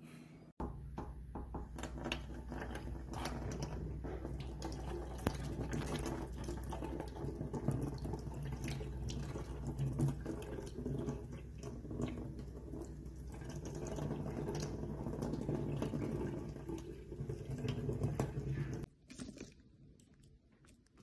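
Kitchen tap running into a stainless-steel sink, the stream splashing over a wet cat held beneath it. The running water cuts off suddenly near the end.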